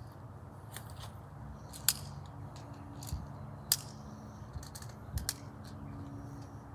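Small sharp clicks from BBs being pressed one by one into a BB pistol's magazine past its spring-loaded lever. The two loudest come about two seconds in and just before four seconds, with a few fainter ones between, over a faint steady low hum.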